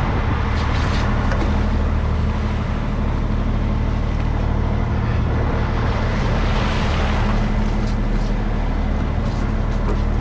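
Commercial crab boat's engine running steadily, a constant low hum under a broad hiss of machinery and water, with a few faint clicks.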